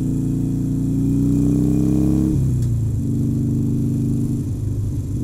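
Harley-Davidson Sportster Forty-Eight's V-twin engine pulling under throttle, its pitch slowly rising, then dropping abruptly about two seconds in as the rider shifts up a gear, and running steadily after that.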